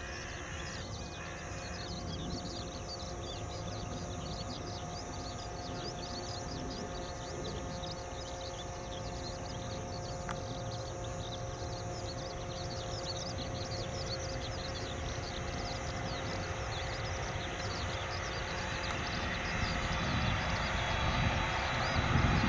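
Boeing 767-300ER's twin General Electric CF6-80C2 turbofans running with a steady whine and rumble as the airliner taxis onto the runway to line up. The engine noise grows louder near the end as the jet swings round toward the listener.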